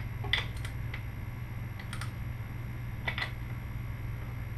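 A few light, irregular metallic clicks and clinks from a socket and hand tools being handled and fitted during an oil change, over a low steady hum.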